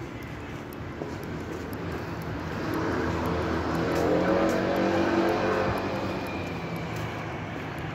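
A motor vehicle passing by, its engine sound swelling to a peak about four to five seconds in and then fading away.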